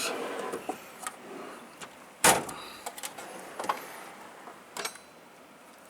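Scattered light clicks and knocks of hand tools being handled in a metal toolbox, the loudest about two seconds in.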